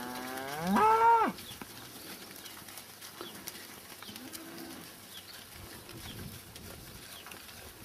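An Ayrshire cow moos once, a loud call that rises in pitch and stops about a second in.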